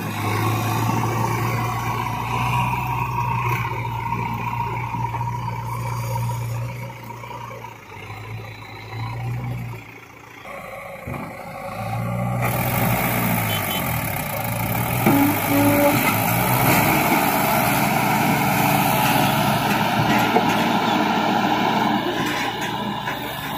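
Diesel engine of a JCB 3DX backhoe loader running as it drives over soft ground. After a break about ten seconds in, the engines of the backhoe and a Mahindra 551 tractor run louder under heavy load, as the backhoe pushes the tractor's loaded trolley out of the mud.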